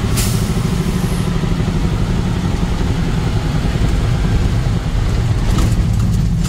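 Steady engine and road rumble of a vehicle being driven.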